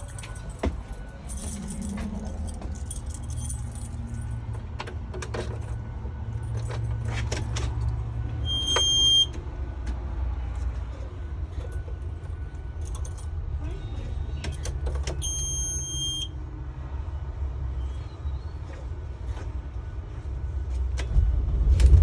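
Inside a running school bus: a steady low engine rumble with constant small rattles of the body and fittings. A high electronic beep sounds twice, briefly about nine seconds in and again, longer, around fifteen seconds in. The engine grows louder near the end.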